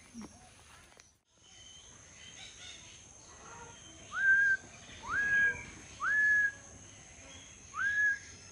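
A bird whistling the same note four times, about a second apart with a longer gap before the last. Each whistle slides up and then holds steady.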